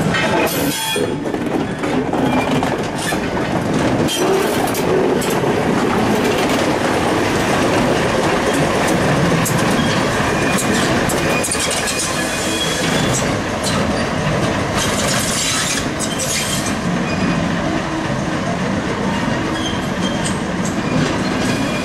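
British Railways class 05 Hunslet diesel shunter running as it draws a brake van and wagons slowly past and away, steel wheels clicking over rail joints and pointwork with some squeal from the wheels.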